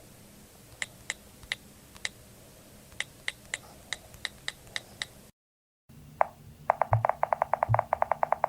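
Two sound-effect clips of sharp clicks with a slight ring. First come about fifteen irregularly spaced single clicks. Then, after a short break, one click is followed by a rapid, even run of louder clicks, about ten a second, with two dull low thuds under it.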